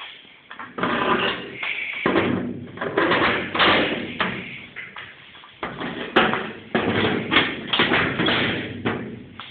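Irregular knocks, thumps and clattering, with a sharp knock about six seconds in.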